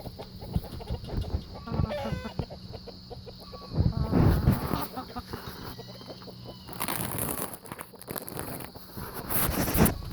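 Bantam rooster clucking and calling, with louder bursts of noise about four, seven and nine seconds in.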